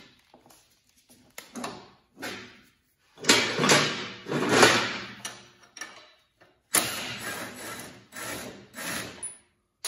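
A socket wrench on a long extension working the go-kart's engine mount bolts loose, in two runs of quick repeated clicking and rubbing of about three seconds each, after a few light metal clicks.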